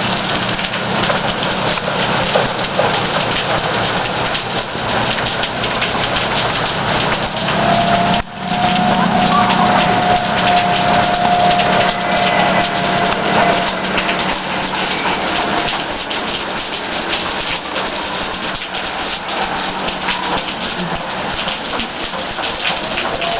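Heavy rain pouring down: a dense, steady hiss of drops pattering on the ground and surfaces. A faint steady tone sounds for several seconds near the middle.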